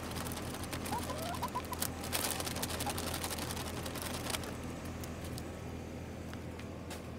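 Chickens pecking and scratching at spinach leaves on concrete and dirt: quick taps and rustling, densest in the middle, with a few short soft chirps from the hens about a second in.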